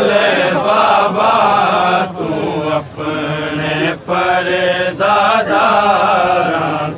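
Saraiki noha, a mourning lament, being chanted: a voice draws out long melodic phrases with short breaks between them over a steady low held tone.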